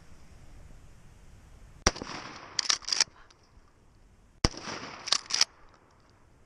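Remington 870 pump-action shotgun fired twice, about two and a half seconds apart, each shot followed within a second by two quick clacks of the slide being racked back and forward; a third shot goes off right at the end.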